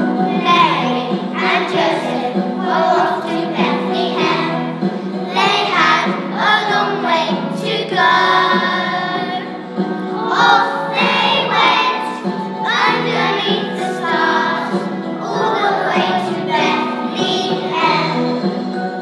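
A choir of young children singing a song together over a steady instrumental accompaniment.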